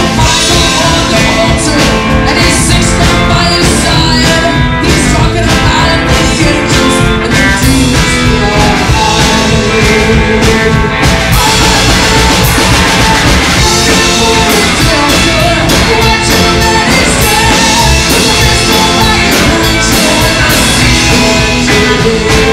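A rock-and-roll band playing live, with electric hollow-body guitars, upright bass and drums, and a vocalist singing over them.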